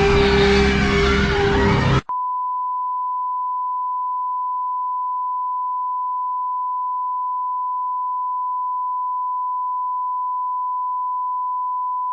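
Guitar-led outro music that cuts off abruptly about two seconds in, followed by a continuous electronic beep: one steady, unchanging tone at a single pitch.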